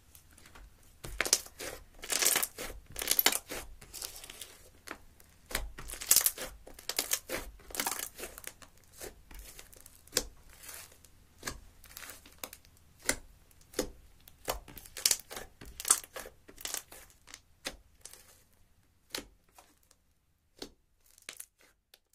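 Thick slime with eyeshadow powder mixed in, stretched and folded by hand: a run of irregular sticky pops and crackles that thins out to a few faint clicks near the end.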